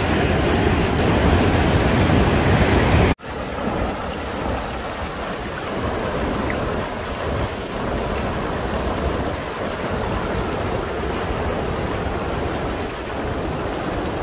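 Waterfall rushing steadily over a rock ledge into a pool. About three seconds in it cuts off abruptly, and a softer, even rushing noise carries on.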